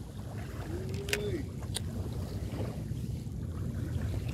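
Steady low rumble of wind and small waves at a rocky seashore. About a second in there is a short, level tone, and two sharp clicks follow within the next second.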